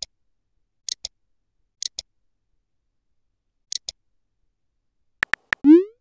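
Texting-app interface sound effects: pairs of short, soft clicks about once a second, then three sharp clicks and a short rising tone near the end.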